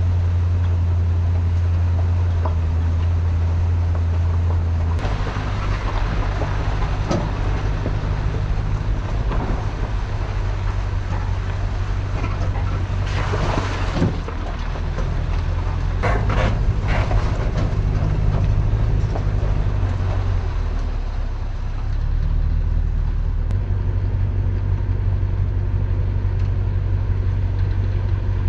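Steady low rumble of a vehicle on the road, changing abruptly several times, with a few short rustling bursts in the middle.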